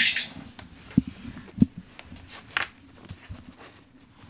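Skate shoe being tried on and stepped on a hard floor: a scuff, two dull thumps about a second in, then a sharp scrape near the middle.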